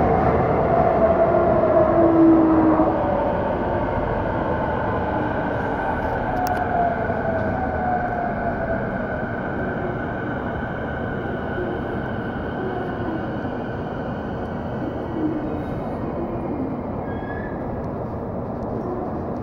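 Toei 10-300 series subway car running, heard from inside the car: wheel and rail noise with an electric motor whine that slides down in pitch, growing gradually quieter as the train slows on its approach to a station.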